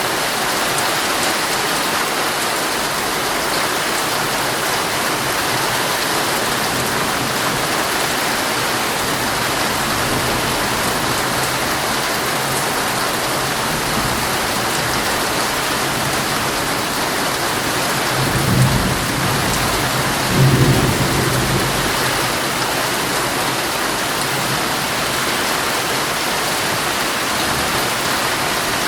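Heavy rain drumming steadily on a tent's fabric, with two low rolls of thunder a little past the middle, the second the louder.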